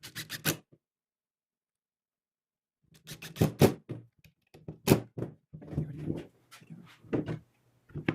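Irregular knocks and clatter: a quick cluster of three or four at the start, then a denser, uneven run from about three seconds in.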